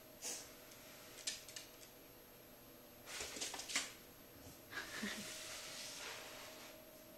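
French Bulldog puppy's claws clicking on a hardwood floor in short, scattered runs of quick ticks, followed by a soft rustling hiss in the later part.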